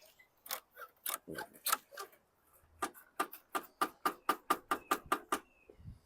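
Nylon zip tie ratcheting as it is pulled tight around the mower's handle cables: a few uneven clicks, then a steady run of about five clicks a second that stops near the end.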